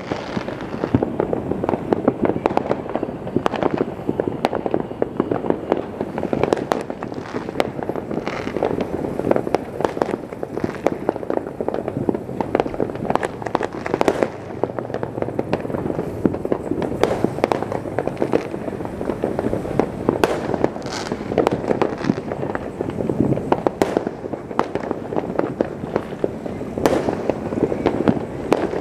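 Fireworks and firecrackers going off all over the city at once: an almost unbroken crackle of pops and bangs, with louder reports standing out every few seconds.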